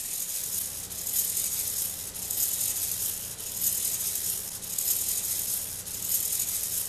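Hobby servos working the conductor figure's arms through its linkages, whirring in repeated strokes about once a second over a steady low hum.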